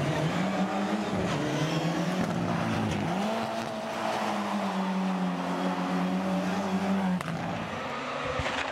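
Mitsubishi Lancer Evolution rally car's turbocharged four-cylinder engine revving hard through a sliding corner on a loose surface, its pitch climbing and then held high. About seven seconds in it cuts off abruptly and gives way to a quieter, more distant rally car engine.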